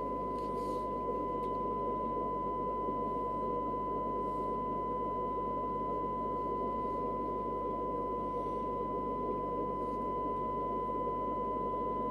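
Steady 1 kHz test tone from an AKD 4001 4-metre FM transceiver's speaker, demodulated from an S9-level test signal fed in by a signal generator. A fainter overtone at twice the pitch and a noisy low buzz sit beneath it, sounding rough rather than clean.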